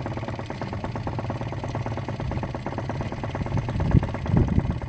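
Boat engine running steadily at low trolling speed, with a couple of louder low thumps near the end.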